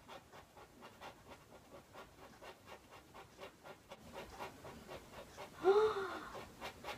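Scratch card being scratched: a faint, rapid run of scraping strokes, about four or five a second. Near the end comes a short, louder vocal squeal that rises and falls, her excited reaction to a £2 win.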